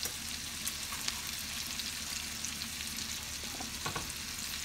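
Onions sizzling steadily in vegetable oil and butter in a frying pan, with light rustling and small clicks as handfuls of chopped cabbage are pushed into the pan.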